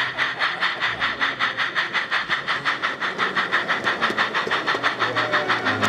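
Miniature model of BR Standard tank locomotive No. 80010 running on a garden track, chuffing in a rapid, even beat of about eight hissing exhaust beats a second.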